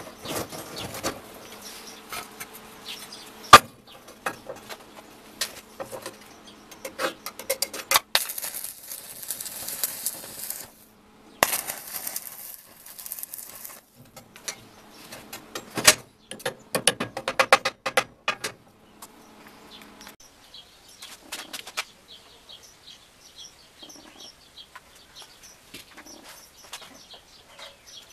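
Stick-welding arc crackling in two bursts of a few seconds each, between sharp metallic clicks and knocks. Faint bird chirps in the later part.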